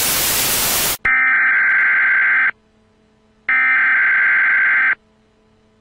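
A second of TV static hiss, then an emergency broadcast alert tone sounding twice as loud electronic beeps. Each beep lasts about a second and a half, with a second of silence between them.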